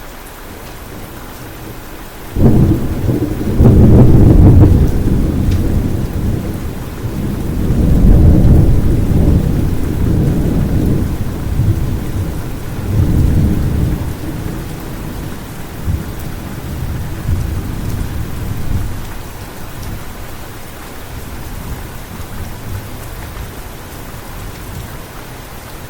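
A thunderclap breaking sharply about two seconds in over steady rain, then rolling in long low rumbles that swell twice more and slowly fade back into the sound of the rain.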